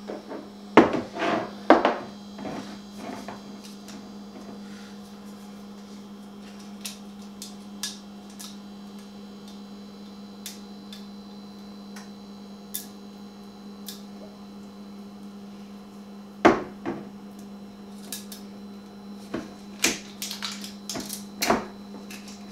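Scattered clinks and knocks from a glass olive oil bottle and kitchen utensils being handled at the counter: a cluster at the start, one sharp knock about two-thirds of the way through and several more near the end, over a steady low hum.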